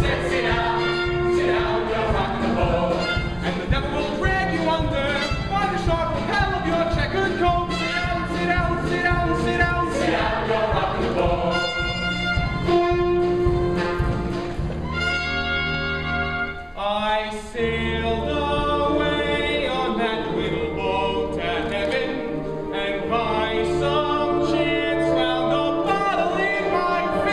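A male soloist singing a Broadway show tune, joined by an ensemble chorus, over instrumental accompaniment. The music dips briefly a little past the middle.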